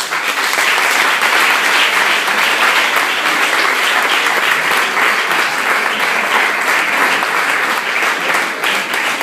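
An audience applauding: dense, steady clapping that breaks out suddenly and keeps up at full strength.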